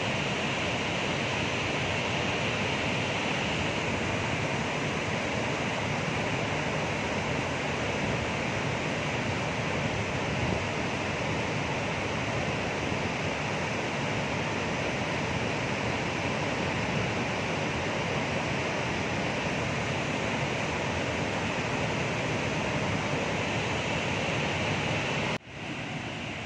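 Steady roar of floodwater released through the open spillway crest gates of Srisailam Dam, plunging down the spillway and crashing into the pool below as a dense, unbroken rushing. It breaks off abruptly near the end and comes back a little quieter.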